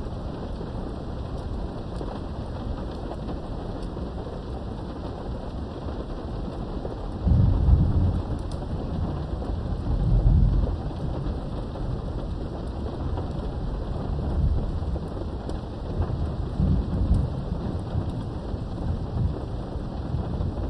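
Steady rain falling, with a rumble of thunder that breaks in suddenly about seven seconds in and rolls on in low swells, peaking again around ten seconds and a few more times later.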